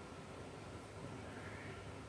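Quiet room tone with a faint steady low hum and no distinct event.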